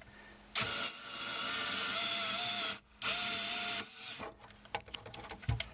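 Small Craftsman electric screwdriver running in two bursts: about two seconds, a brief stop, then under a second more, its motor holding a steady pitch. Light clicks and handling noises follow.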